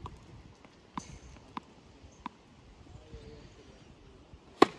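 A tennis ball bounced on a hard court a few times before a serve, light single knocks spaced well apart, then a sharp, much louder crack of the racket strings striking the ball on the serve near the end.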